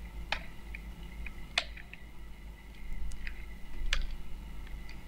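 Computer keyboard keys pressed one at a time, some eight to ten scattered clicks with uneven gaps, while a CSS property name is typed out. A faint low hum runs underneath.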